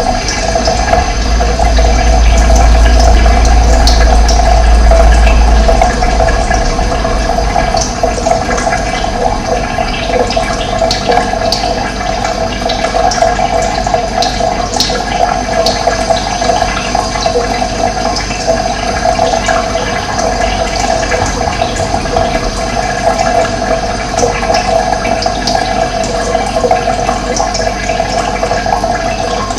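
Steady rush of running water. A deep low rumble lies under it for the first few seconds.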